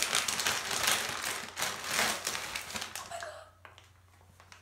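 Plastic packaging crinkling and rustling as it is handled and a squishy toy in its plastic bag is pulled out of a plastic mailer. The crinkling dies down about three and a half seconds in.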